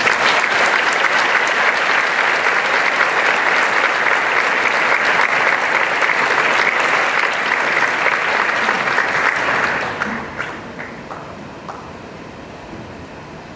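Audience applauding: dense clapping that starts at once, holds for about ten seconds, then thins out to a few scattered claps.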